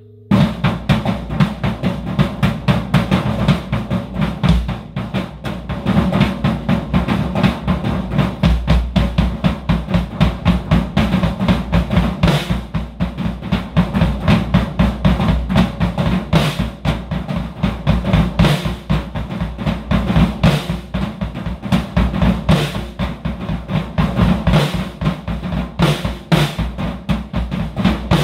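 Acoustic drum kit played with sticks: a dense, continuous pattern of snare, toms and bass drum with Paiste cymbals, starting abruptly at the opening.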